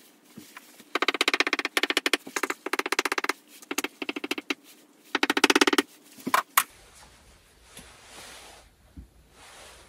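Marker pen squeaking across a whiteboard sheet in several strokes, a fast rattling squeak, followed by two short clicks.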